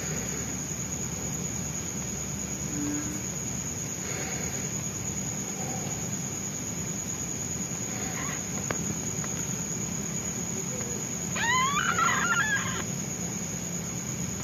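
Newborn kitten mewing for its absent mother: a few faint mews, then one loud, wavering mew lasting over a second near the end.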